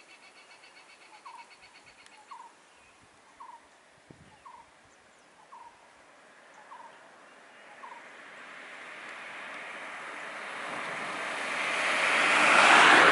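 A bird repeats a short rising note about once a second. From about eight seconds in, a small Suzuki car draws near, its tyre and engine noise swelling steadily to a loud peak at the end as it passes close by.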